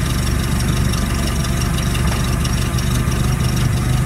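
TCM forklift engine idling steadily.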